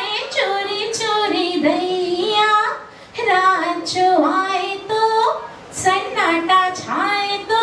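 A woman singing solo into a microphone, holding long notes that bend in pitch, with a short break about three seconds in.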